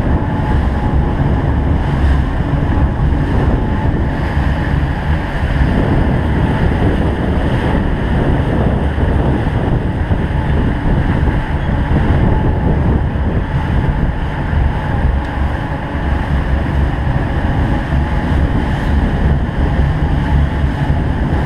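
Steady wind and water noise on the microphone, a constant low rumble with no breaks, over open water.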